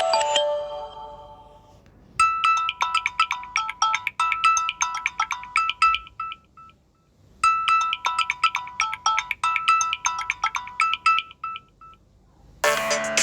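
Samsung Galaxy A13 phone ringtone: a quick, bright melody of short chiming notes, played twice with a short pause between. It starts as the last notes of the previous tone ring away, and near the end a different ringtone with an electronic beat begins.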